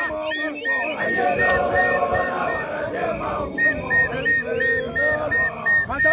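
A group of Basotho initiates singing and chanting together as they march, with a high whistle blown in short, evenly spaced toots about three times a second. The whistling pauses for about a second around the middle.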